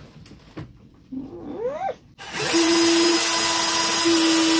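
Cordless drill with a long bit boring into a pine timber frame. A short rising whine comes about a second in, then the drill runs loud and steady from about two seconds in.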